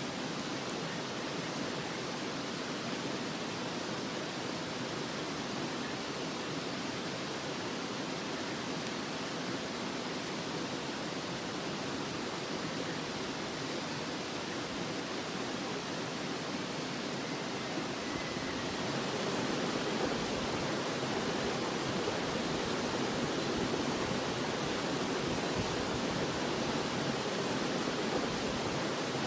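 Running water rushing steadily, with no crackle or tone in it, growing a little louder about two-thirds of the way through.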